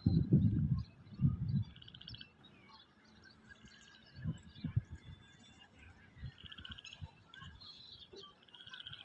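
Wind gusting over grass and buffeting the microphone in short low rumbles, strongest in the first second and a half, while small birds chirp and give quick trills throughout.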